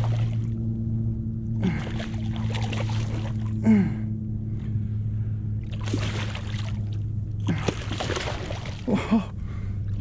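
Big hooked speckled trout thrashing at the water's surface, splashing hard in several bursts a few seconds apart, over a steady low hum.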